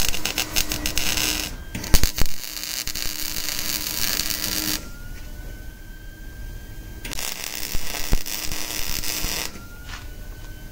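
Wire-feed welder arc crackling and hissing as steel tubing is welded: one weld of a few seconds with a short break, then a pause, then a second shorter weld.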